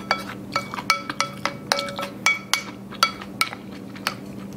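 Wooden spoon and chopsticks clinking and scraping against a ceramic bowl while the last of the soup is scooped out. About a dozen quick clinks, each ringing briefly, stopping a little before the end.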